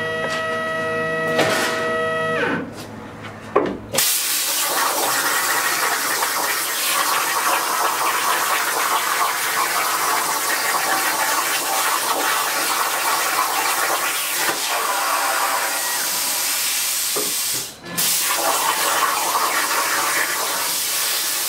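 CNC plasma cutter cutting quarter-inch steel plate: a steady whine for the first few seconds, then the arc fires about four seconds in with a sudden loud, even hiss that runs on as the torch cuts. The hiss drops out for a moment near the end and picks up again.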